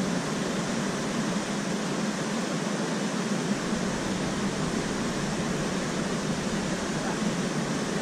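Flowing river water rushing with a steady, even noise that does not change.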